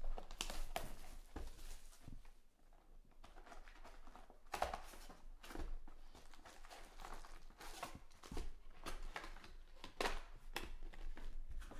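Trading-card hobby box being torn open and its wrapped packs pulled out and set down on the table: irregular cardboard tearing, wrapper crinkling and light handling knocks.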